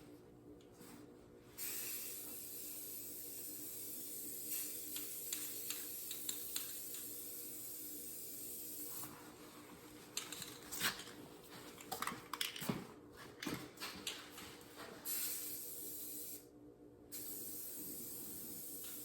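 Spray paint hissing in long steady bursts, with a stretch of scattered clicks and knocks between the bursts.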